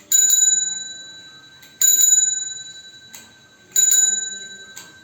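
Bicycle bell rung three times, about two seconds apart; each ring is a quick double ding that rings on and fades.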